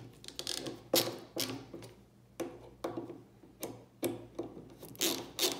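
Hand screwdriver tightening wood screws into a wooden block, making a short click or rasp with each turn of the hand, about twice a second and a little faster near the end.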